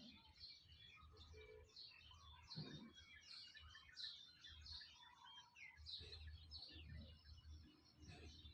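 Faint, busy chirping of several small birds, many short high calls overlapping without a break.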